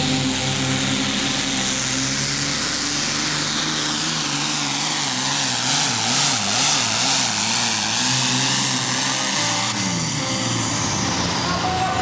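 Superfarm pulling tractor's diesel engine at full throttle during a pull. Its pitch wavers up and down midway, then drops near the end as it comes off throttle, with a high whine sliding down as it spools down.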